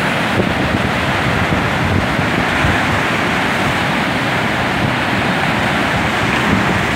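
High, swollen river water rushing steadily over a low weir, churning into whitewater and standing waves below it.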